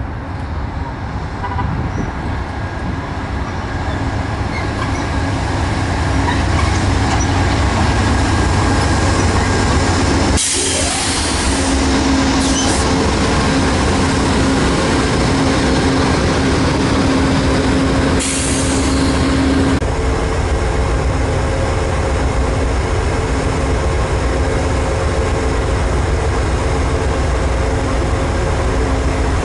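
A train passing close by, its wheels rolling on the rails, growing louder over the first few seconds and then running steadily. Two short, sharp hisses come about ten and eighteen seconds in.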